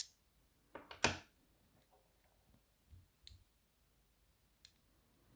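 A handful of small, sharp metal clicks and taps from a BKS 88 pin-tumbler cylinder being taken apart, tools and pins knocking against metal. The loudest is about a second in.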